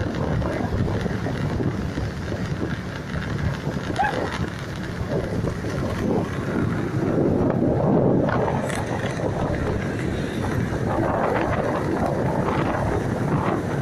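Wind buffeting the microphone: a steady low rumble that swells and eases, loudest about eight seconds in.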